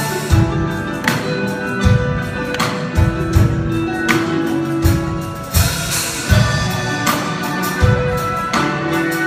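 Live orchestra of Ukrainian traditional instruments playing a rock cover, with a steady drum beat under plucked strings and long held notes.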